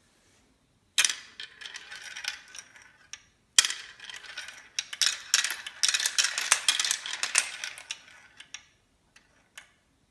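Marbles rolling down a marble run, clicking and clattering as they collide with each other and with the track. Two dense bursts of rapid clicks, the second longer, then a few last separate clicks near the end.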